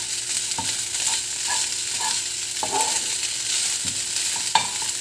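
Fried rice sizzling in a nonstick wok as a plastic spatula stirs and scrapes through it, with a few knocks of the spatula against the pan.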